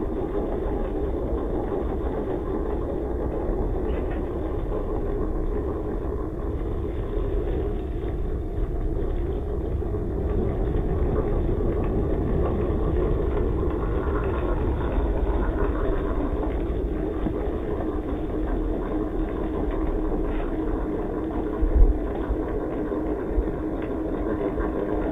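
Stock brushed electric motor and gearbox of a WPL C24-1 RC truck running steadily as it struggles to climb rock on its stock tires, with a single thump about 22 seconds in.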